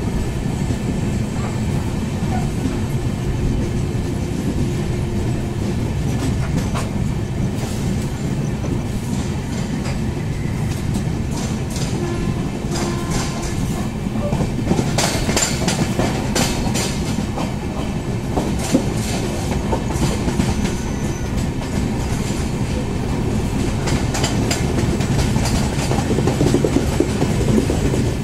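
Sapt Kranti Express passenger train running through a station at speed without stopping, heard from the side of a moving coach: a steady rumble of wheels on rail with clickety-clack over the rail joints. Sharper clattering comes in bunches around the middle and again near the end.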